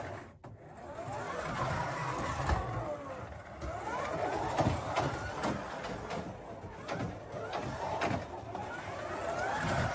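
1/24-scale Wolf MCS-M slot car's small electric motor whining as it laps the track, the pitch rising and falling again and again with the throttle, along with sharp clicks.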